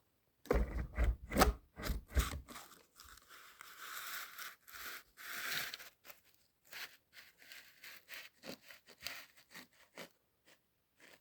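Handling and movement noise: several heavy knocks and bumps in the first two seconds, then rustling and scraping with scattered clicks as someone moves about and handles things.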